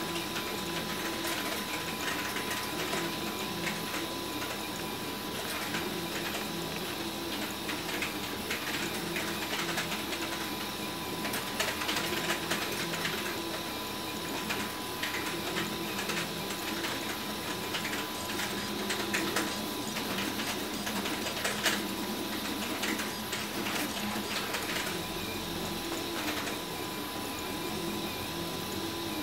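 RepRap Huxley 3D printer running a print: its stepper motors whir in short runs whose pitch jumps from one note to the next as the print head moves, over a steady high whine. Small ticks are scattered throughout, the sharpest about 21 seconds in.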